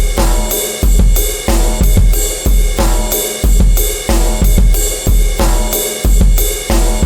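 Drum test track: a loud drum kit beat with a deep bass hit about every three-quarters of a second, snare and cymbals over it, and some held pitched tones underneath.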